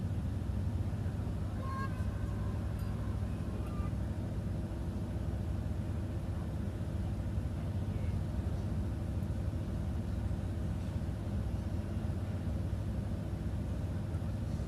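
Steady low drone of a ferry's engines heard from inside the vessel, with a few faint, short higher sounds about two to four seconds in.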